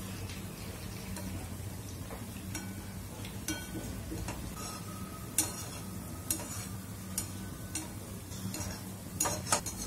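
Gulab jamuns deep-frying in oil in a kadai with a steady sizzle, the oil over medium-low heat. A slotted spoon moves through the oil, splashing it over the dumplings and clicking against the pan now and then, with several clicks close together near the end.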